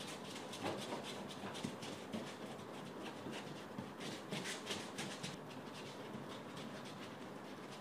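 Paintbrush bristles scrubbing paint onto a canvas: a quick run of short, scratchy strokes, busiest for the first five seconds or so, then fainter.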